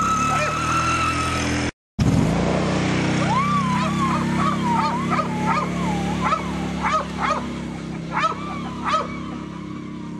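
A four-wheeler's engine running steadily as it pulls away and heads off, with a short break about two seconds in. Over it, a steady high tone for the first second and a half, then high, wavering whining calls and short yips that rise and fall until near the end.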